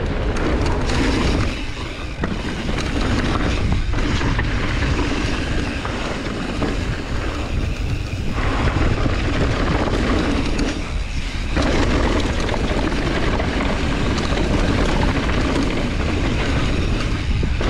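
Wind buffeting an action camera's microphone with a steady low rumble, together with a mountain bike rattling and its tyres running over a rough dirt downhill trail at speed. The noise eases briefly a few times.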